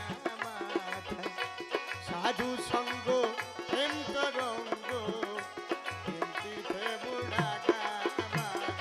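Bengali Baul folk music in an instrumental passage between sung lines: a melody with sliding notes over a steady hand-drum rhythm.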